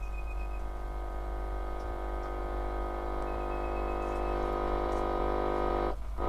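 A 1941 Fisk Radiola valve radio's speaker giving out a steady buzzing hum that slowly grows louder as its supply voltage is raised, with a faint high whistle coming and going. The hum breaks off for a moment near the end and comes back.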